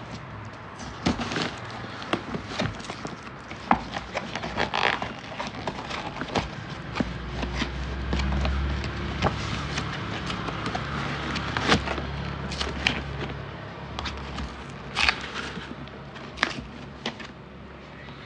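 Cardboard takeaway box being opened by hand and its paper lining unfolded: irregular crackling and rustling with scattered sharp taps and clicks. A low rumble sits under it for a few seconds around the middle.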